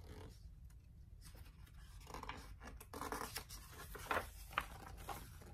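A page of a large hardcover picture book being turned: faint paper rustling and sliding, with a couple of sharper flicks about four seconds in.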